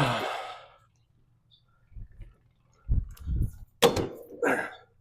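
Knocks and clunks of door-handle hardware being handled and fitted against a sliding glass door: a sharp hit at the start that rings briefly, then a few separate knocks about two, three and four seconds in.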